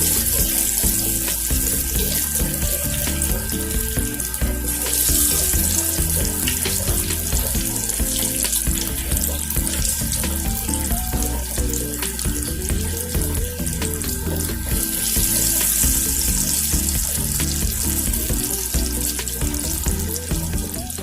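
Banana-flower and chana dal vadai deep-frying in hot oil: a steady sizzling hiss that swells and eases, with background music.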